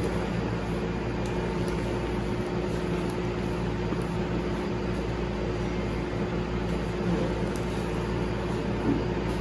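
Steady mechanical hum, like room air conditioning, with a couple of faint clicks.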